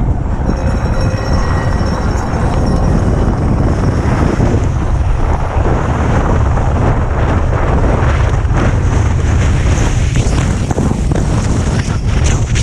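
Loud, steady rumble of wind buffeting an action camera's microphone on an exposed ridge, with faint scraping of skis over the snow in the middle.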